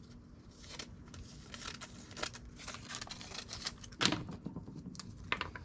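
Handling noises: quick small clicks, taps and rustling as paper and tape are worked around a metal exhaust tube, with a sharper knock about four seconds in and another near the end.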